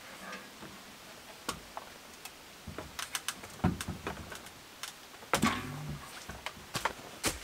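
Irregular light clicks and knocks of hands handling things at work, with a louder knock a little over five seconds in.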